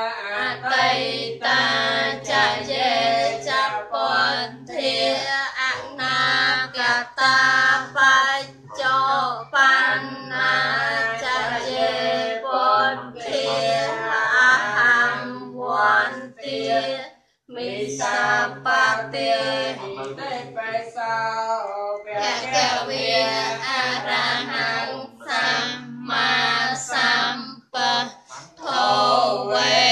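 Buddhist devotional chanting sung by a group of voices in unison, with women's voices prominent. It runs in long melodic phrases with a short pause about halfway through.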